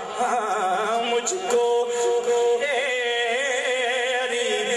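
A man singing a naat unaccompanied into a stage microphone, drawing out long melismatic notes that waver in pitch.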